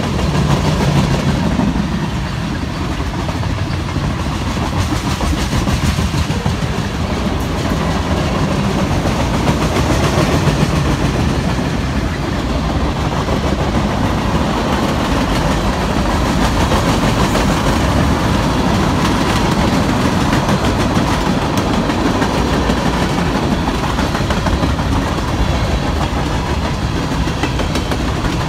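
Freight train cars, boxcars and covered hoppers, rolling steadily past close by: a continuous rumble and rattle of steel wheels on rail, with occasional sharp clicks.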